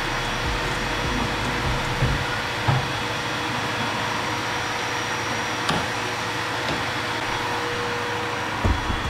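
Dust collector vacuum on a benchtop blasting cabinet running steadily, with a few light knocks as a valve cover is set inside and the cabinet's side door is shut.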